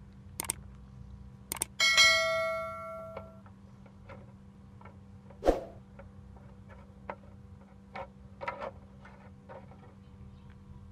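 Metal clinks and knocks of pliers against a rusty blade and the steel soaking tray. One strike about two seconds in rings like a bell for over a second, a sharp knock follows a few seconds later, then a run of light clicks as the blade is gripped.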